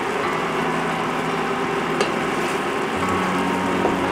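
Fried tilapia pieces with ginger sizzling and bubbling in a bean-paste sauce in a stainless steel frying pan, over a steady hum. A single light click about two seconds in.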